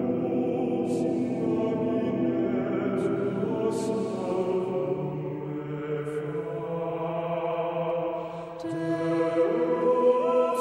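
Background choral music: voices chanting slow, long-held notes, dipping briefly about eight seconds in before the singing swells again.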